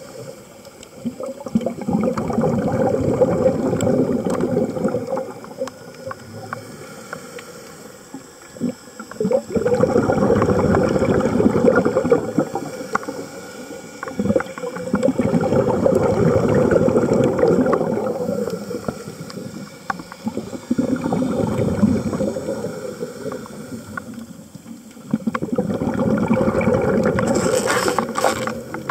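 A scuba diver breathing through a regulator underwater: a loud bubbling rush of exhaled air about every five to six seconds, five times, with quieter inhalations between.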